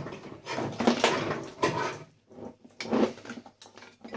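Irregular clattering and rustling of a coffee maker's plastic and metal parts being handled and pulled apart during scrapping.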